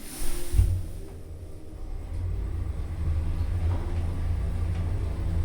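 Machine-room-less Schindler passenger lift setting off and travelling: a brief hiss at the start, then from about half a second in a steady low rumble of the car in motion that grows slightly louder.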